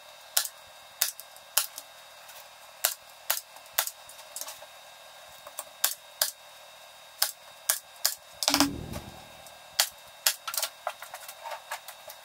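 A series of sharp, separate clicks and taps, one or two a second and closer together near the end, from hand-tool work on a wooden two-by-four, with a brief rustling knock about eight seconds in.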